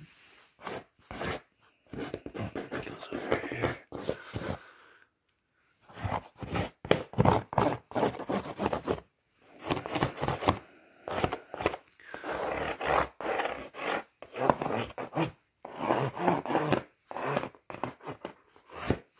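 X-Acto hobby knife slicing through corrugated cardboard in repeated short scraping strokes, with a few brief pauses between cuts.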